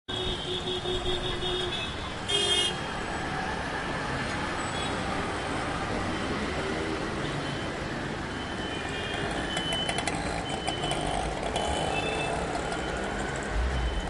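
Street traffic: a steady wash of passing cars and trucks, with car horns sounding at the start and a short, loud honk about two seconds in. Fainter horns toot now and then over the traffic.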